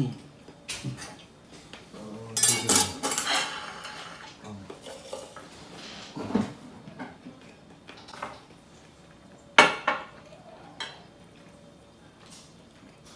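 Kitchen dishes and cutlery clattering and clinking: a busy run of clatter about two to three seconds in, then scattered single clinks, the loudest a sharp knock of metal or ceramic past the middle.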